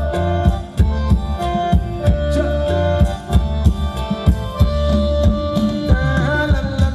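Thai ramwong dance music played by a live band: a quick, steady drum beat under sustained melody notes. A singer's voice comes in near the end.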